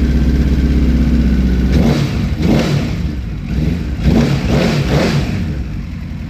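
Honda CBR1000RR Fireblade inline-four engine idling steadily, then revved in several quick throttle blips starting about two seconds in, each rising and falling back, before it settles toward idle. The engine is being run to show a knocking noise that its owner is chasing.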